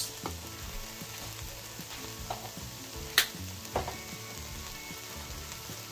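Ground beef and onions sizzling in an enameled cast-iron Dutch oven, a steady frying hiss. A few sharp clicks sound over it, the loudest about three seconds in.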